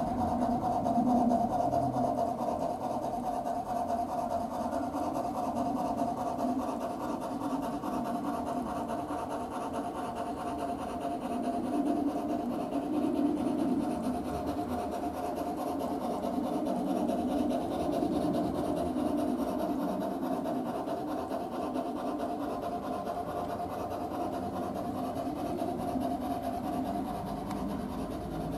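Bachmann G-scale Climax model locomotive running along the track, its Soundtraxx Tsunami sound decoder playing a fast, steady rasping steam chuff through the locomotive's small speaker. The sound swells a little now and then.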